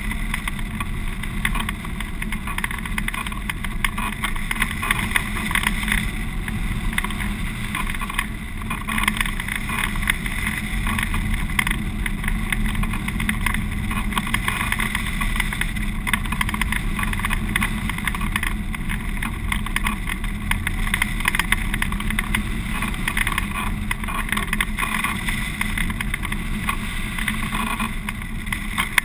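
Steady rush of airflow over a hang glider in flight, buffeting the microphone of a camera mounted on the wing.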